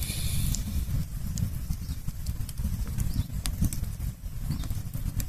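Campfire crackling: scattered sharp pops and snaps over a low, uneven rumble, with a short hiss right at the start.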